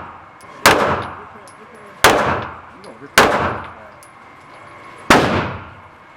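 Four single gunshots from a firearm at a shooting range, irregularly spaced about one to two seconds apart, each followed by a short echoing decay.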